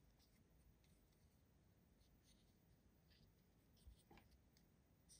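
Near silence, with faint scattered clicks and light taps from a small plastic action figure and its display stand being handled; one slightly stronger knock about four seconds in.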